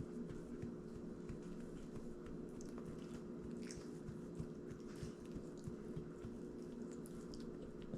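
Small dog chewing and licking its lips: quiet, irregular wet clicks and smacks over a steady low hum.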